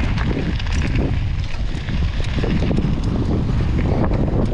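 Wind buffeting a GoPro's microphone during a mountain bike ride: a loud, steady low rumble with scattered clicks through it.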